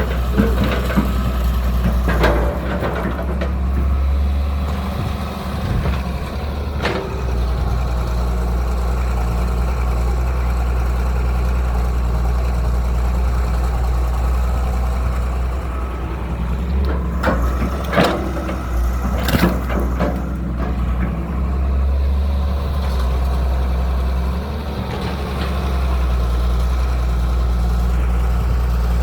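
Excavator's diesel engine running steadily while it digs out a pond, with a few sharp clanks and scrapes in between.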